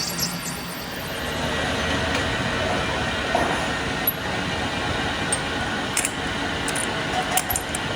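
Metal lathe running steadily, cutting on a steel tractor axle part, with a few sharp clicks over the continuous machining noise.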